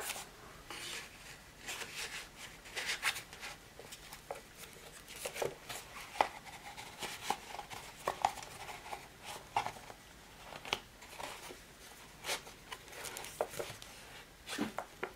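Paper and card being handled: a planner's pages and card cover rustling, with light irregular taps and clicks as it is fitted into a fabric-covered cardboard cover.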